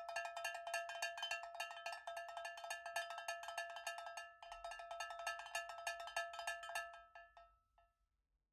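Rapid, even run of ringing, bell-like percussion strikes in an end-of-video music jingle. It breaks off briefly about four seconds in, starts again, then fades out near the end.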